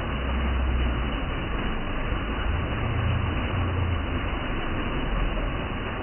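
Steady rushing and splashing of a waterfall pouring onto rocks, with a deep rumble underneath that swells and fades.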